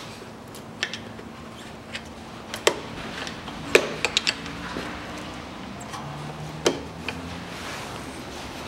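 Screwdriver and hands working at the anti-roll bar bushings on a car's front lower control arm, making scattered sharp metal clicks and knocks, with a quick run of three about four seconds in.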